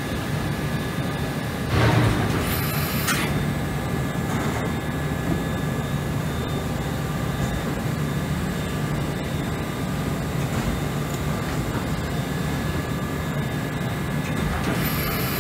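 Doosan VC400 vertical machining center running, its spindle turning and coolant spraying inside the enclosure: a steady hum with a few high steady tones over a spray hiss. It swells louder about two seconds in, and brief high tones come again near the end.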